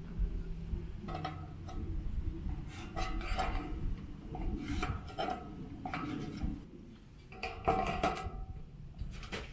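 Light metallic clinks and taps as a tape measure and a metal speed square are handled against a length of sheet-steel trim, with a louder clank about three-quarters of the way through.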